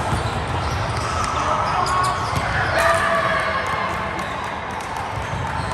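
Indoor volleyball play on a hard court: sharp ball hits and bounces, with players' short shouts mixed in.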